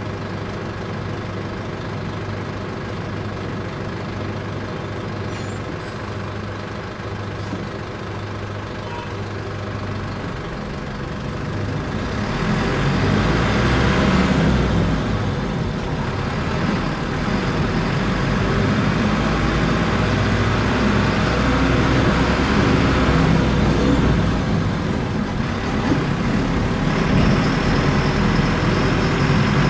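City bus diesel engine heard from inside the cabin, running steadily at a low idle-like hum, then getting louder about twelve seconds in as the bus drives on under load.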